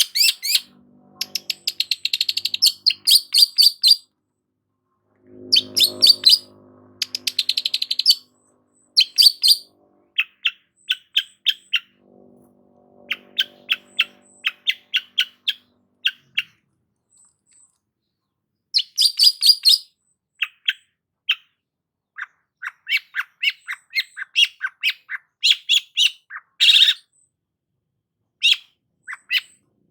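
Long-tailed shrike (cendet) singing: runs of quick high chips and fast rattling trills, delivered in bursts separated by short pauses.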